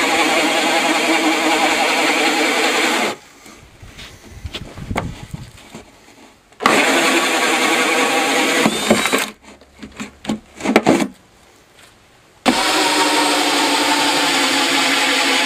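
Cordless drill with a hole saw cutting holes through the plate, running steadily in three spells with short pauses between. Several sharp knocks come between the second and third spells.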